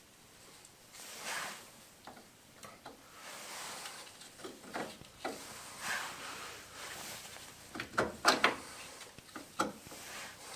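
Metal clicks, scrapes and rubbing of drum brake shoes, return springs and adjuster being handled and worked into place, with a cluster of sharp clanks about eight seconds in.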